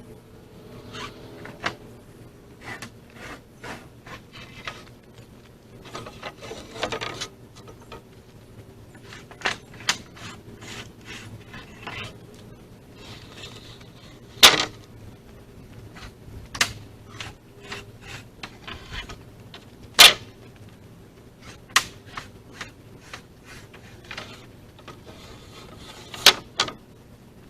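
Wooden lumber being handled: irregular sharp knocks and clacks of sticks and boards striking one another, with some scraping and rubbing between. Two knocks, about halfway through and a little later, are the loudest.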